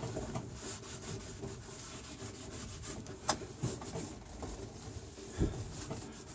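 A rag wiping stray fibreglass resin off a fibreglass boat surface: steady rubbing, with a sharp tick about three seconds in and a dull thump near the end.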